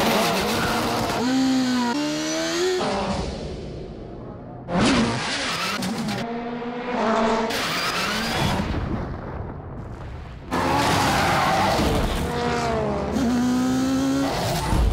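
Racing touring car engines revving hard, the pitch climbing and dropping as they change gear, in three abrupt, cut-together passes.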